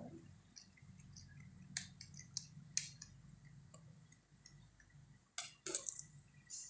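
Small screwdriver undoing the screws in an Acer Aspire One D255 laptop's plastic case: scattered light clicks and scrapes, with a cluster a little past halfway.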